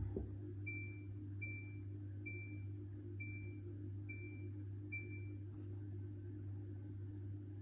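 Hoover H-Wash 600 washing machine's control panel beeping: six short high beeps, evenly spaced a little under a second apart, over a low steady hum.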